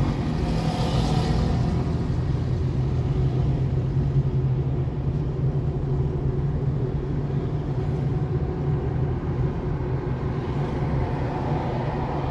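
Car engine and tyre noise heard from inside the cabin while driving: a steady low drone, with a brief hiss of another vehicle about a second in.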